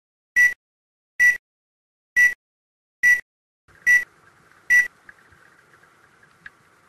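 Film-leader countdown beeps: six short, high beeps a little under a second apart, stopping about two-thirds of the way in. Under the last beeps a faint steady underwater hiss with small ticks begins and carries on.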